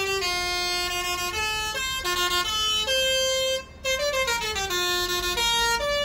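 Multi-tone telolet bus horn playing a quick tune, one held note after another, with a short gap a little past halfway and then a run of falling notes.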